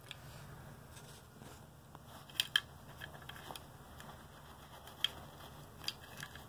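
Handling a grey ribbon cable and its small plastic connectors: a few short, sharp clicks, the loudest a quick pair about two and a half seconds in and more near five and six seconds, over a faint low steady hum.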